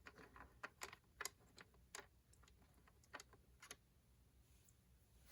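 Faint, irregular light clicks of small screws and the plastic transmitter case being handled, about a dozen of them, dying away after about four seconds.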